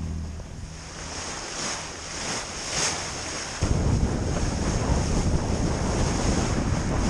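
Water rushing and splashing along the hull of a sailing yacht under way, with wind buffeting the microphone. About three and a half seconds in, the low wind rumble gets suddenly much louder.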